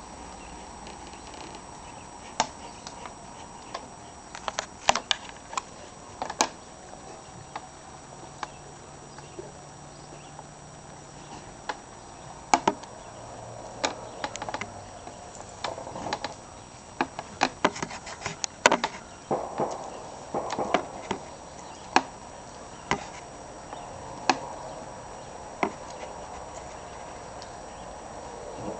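Paws and claws of a cat and a St. Bernard puppy tapping and scuffling as they play: scattered sharp clicks and taps, thickest in the middle stretch, over a steady low background hum.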